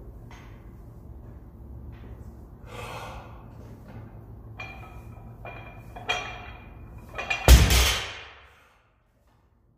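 A weightlifter breathing sharply and bracing while setting up over a loaded deadlift barbell, with a low steady hum underneath. Late on comes one loud rushing thud, and then the sound cuts out completely.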